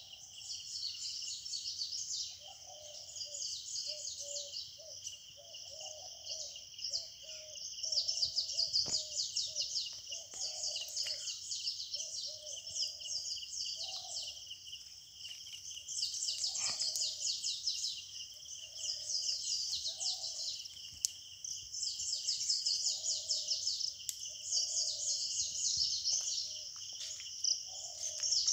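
Morning forest chorus: a steady high-pitched shrill of insects that swells in bouts of rapid pulsing, with lower bird calls repeating every second or so.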